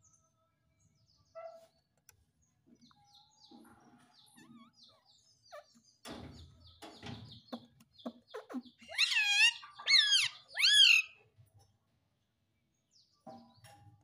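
Indian ringneck parrot making soft scattered chirps and low chatter, then three loud, wavering calls about nine to eleven seconds in.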